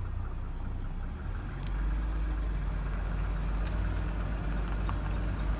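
2002 Mercedes-Benz E320 4Matic (W210) in motion: a steady low drone with a fainter higher tone above it, getting a little louder about a second and a half in. This is the weird noise that comes only while the car is moving, in drive off throttle or at certain engine speeds, and cannot be reproduced standing still.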